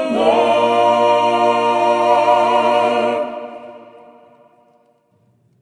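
A cappella choir holding the final chord of a spiritual, with a bass note underneath. The chord cuts off about three seconds in and dies away over the next two seconds to near silence.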